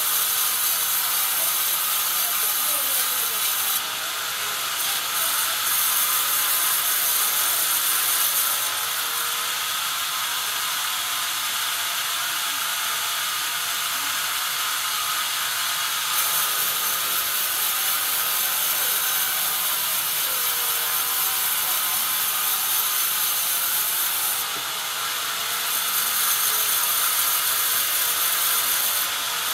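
A Benso sawmill band saw running and cutting lengthwise through a pine log on a log carriage. The blade in the wood makes a loud, steady, hissing whine, and it eases briefly a few times as the cut changes.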